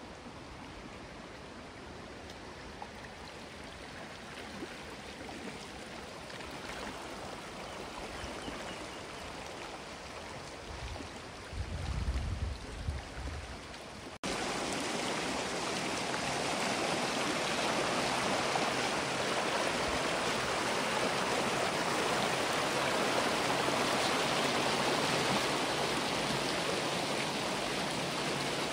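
Oak Creek running over rocks: a steady rush of flowing water. It jumps suddenly louder about halfway through, and a brief low rumble comes shortly before that.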